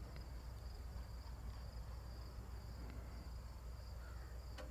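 Faint chorus of insects: a steady, high-pitched pulsing trill over a low rumble, with a single short click near the end.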